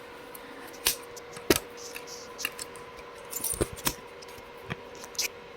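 Scattered sharp clicks and knocks of a camera being handled and fixed onto a tripod, about seven in all, the loudest about a second and a half in, over a faint steady hum.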